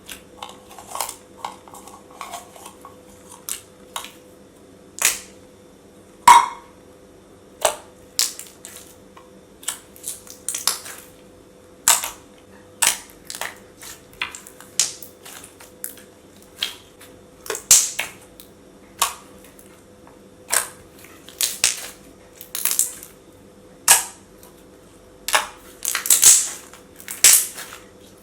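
Thick slime being squeezed and poked by hand, making a string of sharp bubble pops and clicks about once a second.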